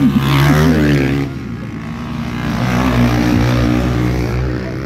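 Motocross dirt bike engine revving hard as the bike rides past close by. The sound drops off about a second in, then engine noise rises and falls again as bikes ride on around the track.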